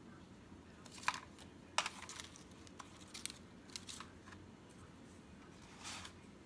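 Paper flower embellishments being sorted through by hand in a plastic storage box: scattered light rustles and clicks of paper against paper and plastic.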